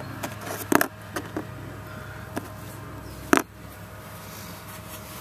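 Broken pieces of an aluminium compressor connecting rod being handled on oily cardboard: a few sharp clicks and knocks, the loudest about three seconds in, over a steady low hum.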